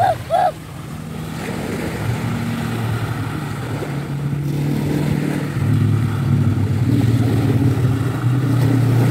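An engine running steadily, growing louder over the first several seconds, with its pitch shifting a couple of times.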